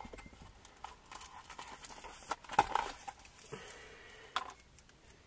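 Faint rustling with a few light clicks and knocks as small parts are handled, the loudest about two and a half seconds in and again near four and a half seconds.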